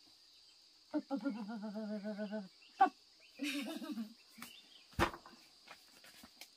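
Insects chirring steadily in a high band. About a second in comes an animal's wavering, trembling call lasting about a second and a half, then a shorter call, with a few sharp clicks and knocks between them.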